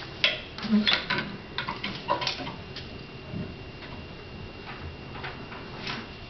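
Scattered light clicks, knocks and paper rustles of people getting up from tip-up auditorium seats and handling paper forms, busiest in the first two or three seconds, then fewer and softer.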